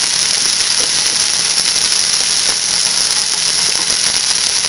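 A pork roast sizzling in hot olive oil in an open pressure cooker, a steady high hiss.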